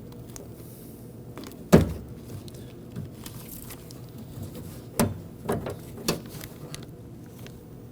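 Sharp clicks and knocks from hands and tools working inside a car door as a clip is released. One loud click comes about two seconds in, and a few lighter clicks follow past the middle.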